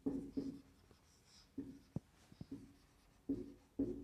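Marker pen writing on a whiteboard in short strokes, with a few sharp ticks of the tip against the board about halfway through.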